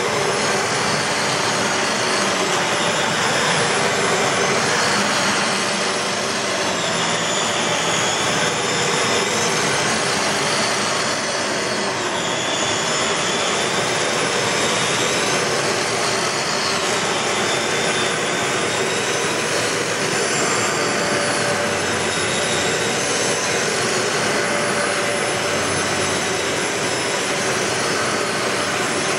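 Dyson DC15 Ball Animal upright vacuum cleaner running steadily: a rush of air under a thin, high, steady whine, with its tone wavering slightly now and then.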